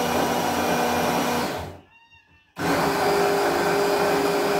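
Electric mini chopper grinding granulated sugar into powdered sugar, run in short bursts to spare its motor: it runs with a steady whine, cuts off just under two seconds in, and starts again about a second later with a higher-pitched whine.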